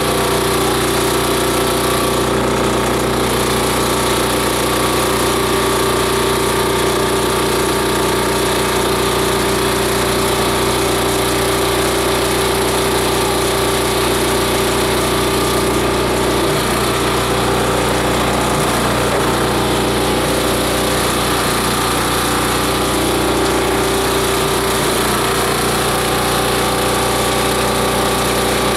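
Multi-blade chopper/shredder machine running steadily, a constant loud mechanical drone with a steady hum.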